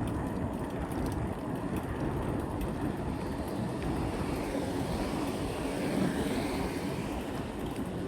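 Steady rushing noise of a bicycle being ridden: wind buffeting the chest-mounted phone's microphone, with tyre and road noise under it.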